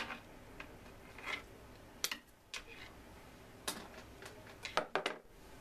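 A short piece of steel coat hanger wire clicking and tapping against a workbench top as it is handled, in a string of about six light metallic ticks spread unevenly over a few seconds.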